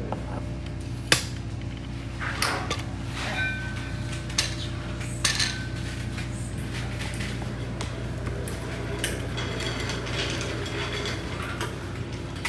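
Scattered clicks, knocks and light metallic clinks from a camera tripod being handled and adjusted, the sharpest about a second in, over a steady low electrical hum.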